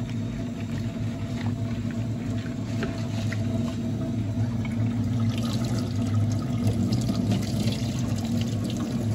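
Kitchen tap running into a plastic blender jug while raw peanuts are swished and rinsed by hand in a stainless-steel sink. About five seconds in, the splashing grows brighter as the rinse water is poured off.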